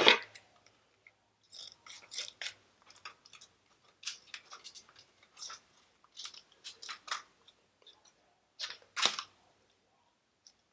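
Plastic packaging crinkling and rustling in short irregular bursts as small squishy packets are handled and opened, with one louder crackle near the end.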